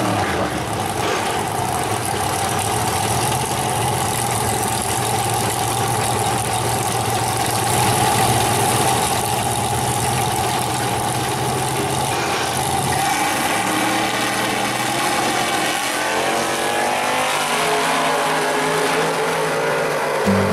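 Drag car engines running loudly and steadily at the starting line. About thirteen seconds in they launch, and the engine note climbs in steps through the gears as the 1941 Willys pro street car runs away down the strip.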